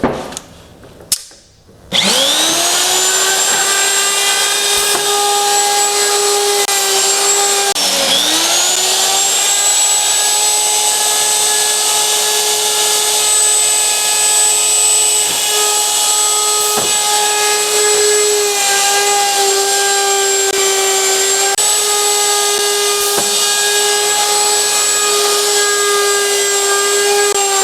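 Hinge-mortising router motor on a door hinge routing station starting up: a high whine that climbs quickly to full speed about two seconds in, then runs steadily. About eight seconds in it drops briefly and spins back up.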